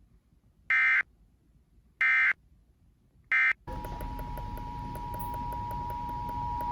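Three short, loud bursts of Emergency Alert System (SAME) digital data tones, about a second apart: the end-of-message code closing a required weekly test. About three and a half seconds in, the steady two-tone EAS attention signal starts over a hissy, humming background, announcing the next alert.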